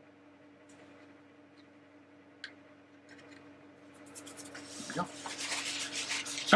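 Paper towel rustling and rubbing in the hands, building in the second half and ending in one sharp thump. A low steady hum runs underneath.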